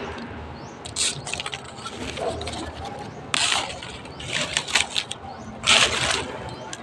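A bolo knife scraping along dried coconut leaflets, stripping the leaf blade off the midribs for a walis tingting broom. The scraping comes in several short, irregular rasping strokes, with the longest near the end.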